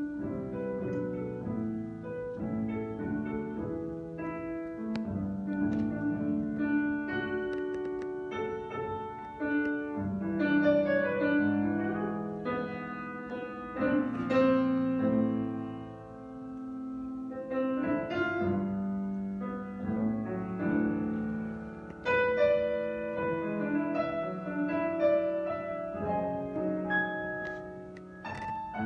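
Grand piano playing chords and sustained melody notes, a quiet unaccompanied-sounding opening to a jazz big-band arrangement, with a fresh chord struck right at the start.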